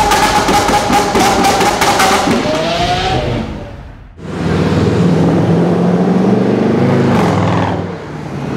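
A channel-intro sound effect that glides up in pitch and holds, fading out about halfway through. Then a loud Mercedes C63 AMG's V8 engine starts up on the track as the car drives through a street, its note steady and then rising a little before dropping near the end.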